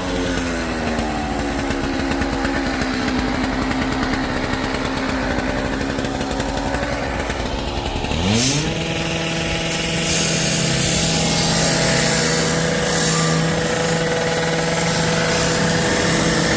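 Engine-driven power saw running while cutting the dome. Its pitch wavers and sags for the first eight seconds, then sweeps up sharply about eight seconds in and holds steady.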